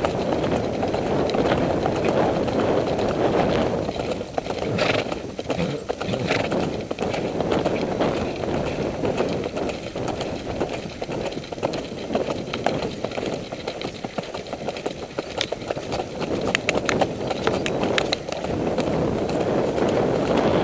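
Horse hoofbeats on a dirt trail, heard from the saddle as a run of sharp clicks over a steady rushing noise. The hoofbeats are clearest through the middle of the stretch.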